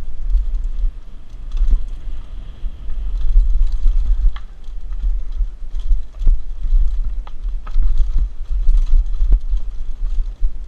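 Wind buffeting the microphone of a helmet-mounted action camera as a Mongoose Pinn'r mountain bike rides down a trail, a heavy rumble that swells and fades, with scattered sharp clicks and rattles from the bike over rough ground.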